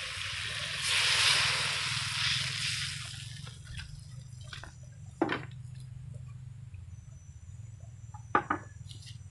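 Coca-Cola poured from a bowl into a hot wok of fried chicken wings: a splashing rush of liquid for about two seconds that then dies away, followed by two sharp clicks.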